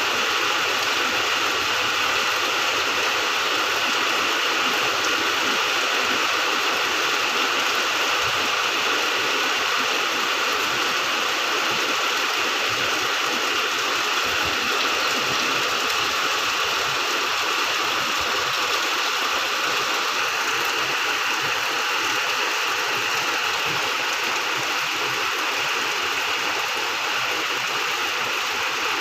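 Steady rain falling, a dense even hiss that holds at one level throughout.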